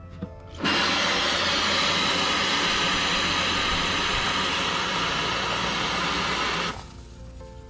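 Aerosol can of gaps-and-cracks expanding spray foam hissing as it pushes foam through its straw into holes drilled in a hollow cooler lid. One continuous spray starts abruptly about half a second in and cuts off about a second before the end.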